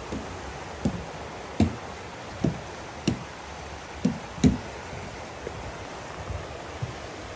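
Footsteps of a hiker walking on a dirt and rock trail, a thud about every three-quarters of a second, some with a small crunch, fading out after about five seconds. A steady rushing hiss runs underneath.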